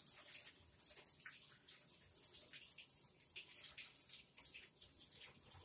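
Kitchen sink tap running, with hands being washed under it and the water splashing unevenly into the sink.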